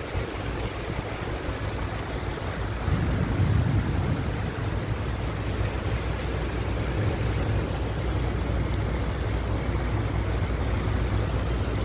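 Steady outdoor noise of rain that has eased off, with a constant low rumble underneath that swells briefly about three seconds in.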